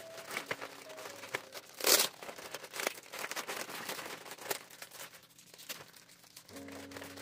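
Thin plastic carrier bags crinkling and rustling as they are pulled apart and unwrapped by hand, in irregular crackles, with one louder crackle about two seconds in.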